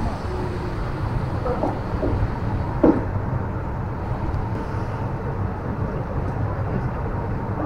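Passenger train rolling along a station platform, heard from the coach: a steady rumble of wheels and running noise, with one brief sharp sound about three seconds in.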